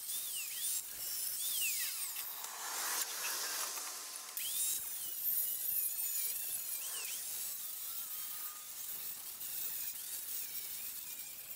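Corded angle grinder cutting through the steel square tubing of a treadmill frame. Its high whine repeatedly dips in pitch as the disc bites into the metal, then climbs back.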